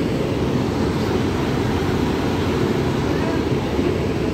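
WAP-7 electric locomotive standing with its cooling blowers running, a steady low drone with no clank or knock.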